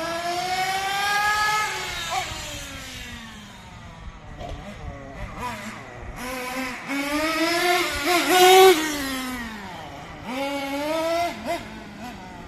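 Modified BTM .18 nitro engine of a 1/10-scale RC car revving up and down in a high-pitched buzz as the car drives. It rises, falls away, then climbs to its loudest rev about two-thirds of the way in, with shorter throttle blips near the end.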